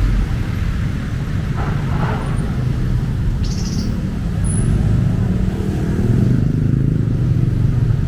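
Street traffic running close by: vehicle engines, including motorcycles and jeepneys, make a steady low drone that grows louder about five seconds in, with a brief hiss midway.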